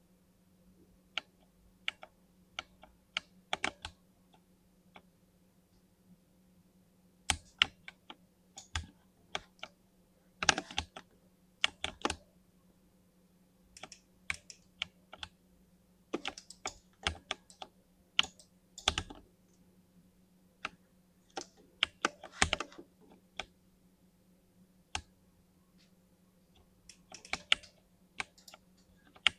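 Typing on a 60% mini mechanical keyboard with lubed linear switches: irregular runs of keystrokes with short pauses between them. A faint steady low hum sits underneath.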